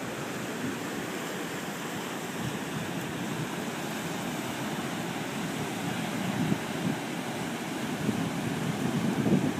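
Ocean surf washing steadily, with wind buffeting the microphone in low gusts that grow stronger near the end.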